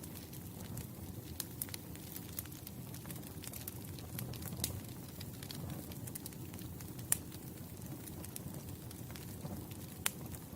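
Campfire crackling: scattered sharp pops and snaps over a steady low rush of burning wood, with one louder snap about seven seconds in.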